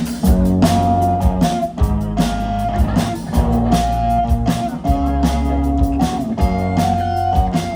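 Blues-rock band music: electric guitar playing held notes, some of them bending in pitch, over a steady bass line and a regular drum beat.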